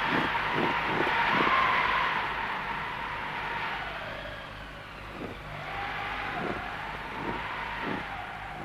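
Howling blizzard wind, a rushing noise that swells and fades in gusts with a whistling tone rising and falling in pitch.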